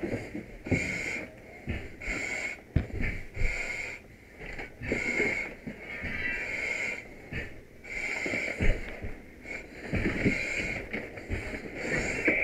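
Firefighter breathing hard through an SCBA face mask and demand regulator, each breath a hiss that repeats about once a second. Low knocks and rustles of gear come in between.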